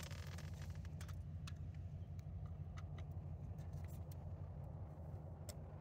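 Wind buffeting the microphone as a low, steady rumble, with a few faint scattered clicks.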